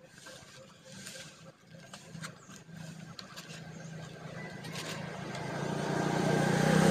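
A motor vehicle passing by, its engine swelling steadily louder over the last two seconds to a peak at the end. A few light clicks and crinkles come from leaves and foam food boxes being handled in the first few seconds.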